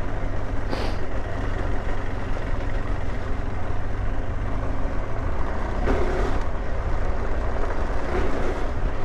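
KTM 390 Adventure's single-cylinder engine running steadily at low trail speed, with a brief sharp knock about a second in.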